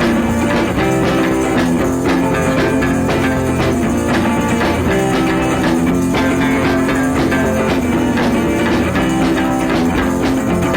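Background rock music with guitar and a steady drum beat, no vocals.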